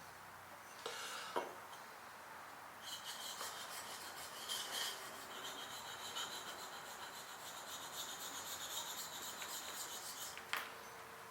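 Steel plane blade rubbed back and forth on a sharpening stone: a short scrape with a click, then a steady, fine, high hiss of rapid strokes starting about three seconds in and stopping with a click near the end.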